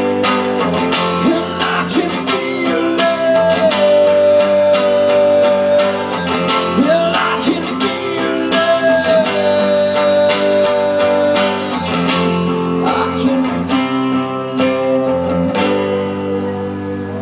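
Rock music led by guitars over a steady bass line, with long held notes that bend and slide in pitch.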